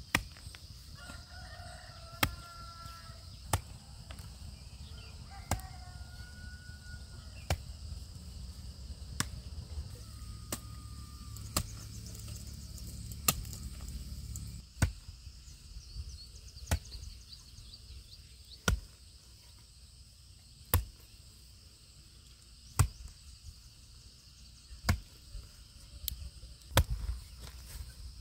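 Steady chopping strikes, one about every two seconds, with a rooster crowing twice in the first few seconds.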